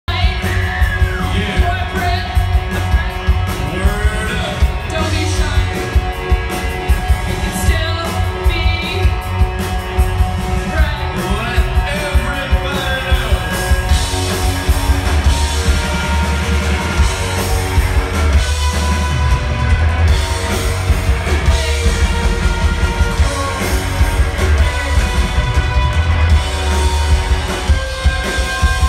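Live rock band playing: electric guitars, bass and drums with a heavy low end and a steady beat, with singing over roughly the first half.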